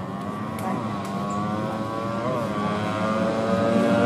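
A racing motorcycle engine running at high revs, its pitch climbing slowly and the sound growing louder.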